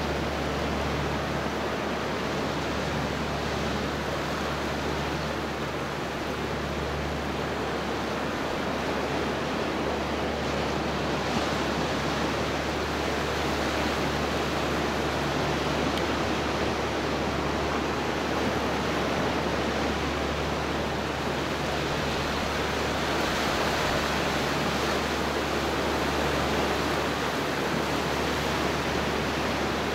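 Ocean surf breaking on a rocky shore and washing through a narrow surge channel: a steady, unbroken rush of water.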